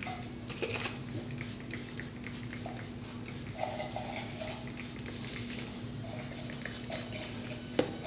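A hand-pump spray bottle misting hair in short hissy squirts, with hair rustling under the hand between them and a faint steady hum underneath.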